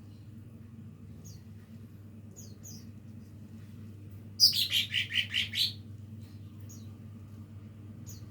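A young cucak ijo mini (leafbird) practising its song: scattered short high chirps, and about halfway through a loud quick run of about six notes, over a steady low hum.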